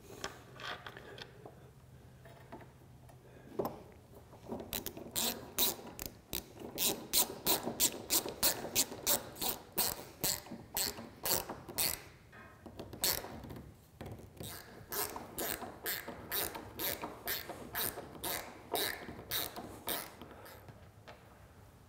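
Ratcheting hand screwdriver clicking in quick runs of about three clicks a second as it drives a bronze screw into the wooden transom, starting about four seconds in with short pauses along the way.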